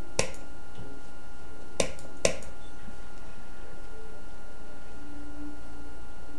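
Three sharp computer mouse clicks: one right at the start, then two close together about a second and a half later. A steady faint hum lies underneath.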